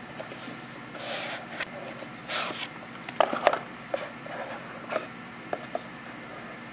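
Cardboard watch boxes handled and opened by hand: two sliding, rubbing swishes, then a quick run of light taps and clicks, and a few single clicks toward the end.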